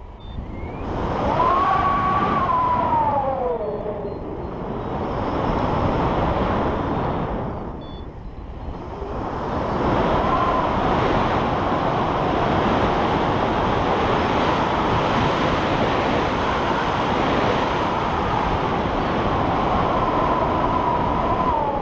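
Wind rushing and buffeting over a pole-mounted camera's microphone on a tandem paraglider in flight, surging and easing. A whistling tone slides down in pitch about two seconds in and again near the end.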